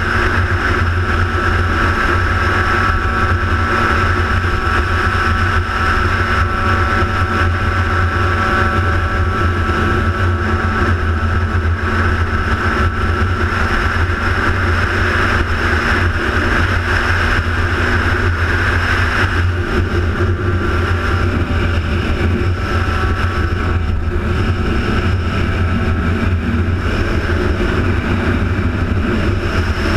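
Motorcycle engine running at a steady cruising speed, a continuous drone that holds the same pitch throughout.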